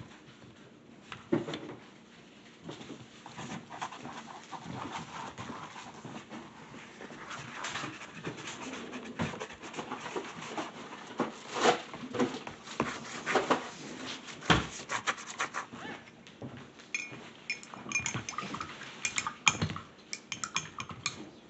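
Paintbrushes knocking, swishing and clinking against ceramic mugs and a plastic paint palette: a run of irregular small clicks and taps, busiest in the middle.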